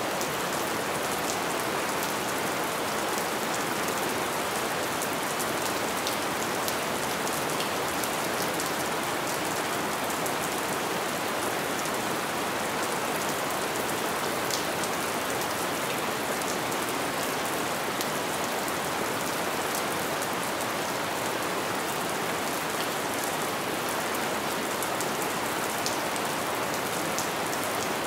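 Light rain falling steadily: an even hiss of rain with scattered faint drop ticks.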